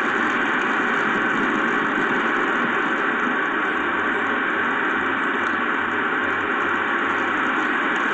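Steady, even hiss of storm rain and wind, with no distinct gusts or impacts.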